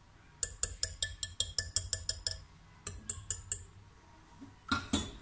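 Wire whisk clinking against a glass mixing bowl in quick taps, about five a second, pausing briefly and then a few more. One louder knock comes near the end.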